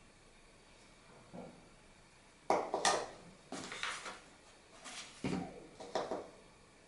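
Metal spoon clinking and scraping against containers as cocoa powder is scooped into a plastic measuring cup: a faint knock, then four short bursts of clatter about a second apart in the second half.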